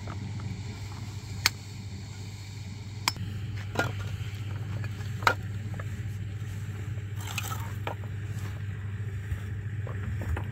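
Masonry trowels scraping mortar and tapping hollow concrete blocks into place on a wall, with four sharp clinks in the first half. A steady low motor hum runs underneath.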